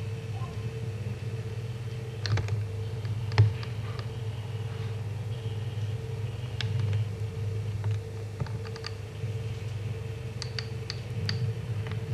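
Steady low electric hum of aquarium equipment, the kind a mains-powered air pump or filter makes, with scattered light clicks and taps; the sharpest click comes about three and a half seconds in.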